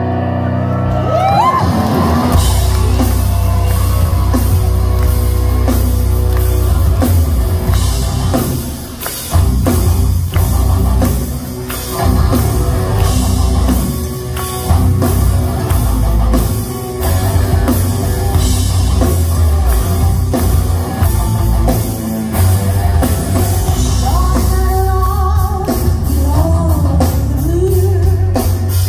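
Live rock band playing loud at a gig. A keyboard opening gives way about two seconds in to full band with drums, heavy bass, guitar and cello. A woman's voice sings near the end.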